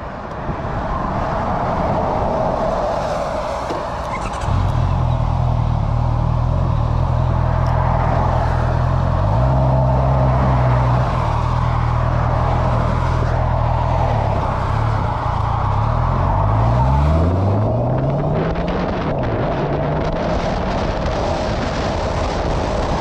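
Honda CBR650R's inline-four engine as the bike moves off over wet cobbles about four seconds in, running steadily at low revs, then revving up through several gears in quick succession as it accelerates onto the motorway. After that, steady wind and road noise at speed take over.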